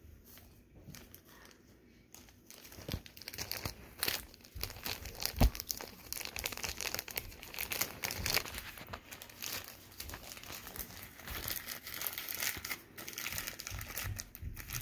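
Clear plastic bag crinkling and rustling as it is handled, an irregular run of crackles and small clicks starting about two seconds in, with one sharper knock about five seconds in.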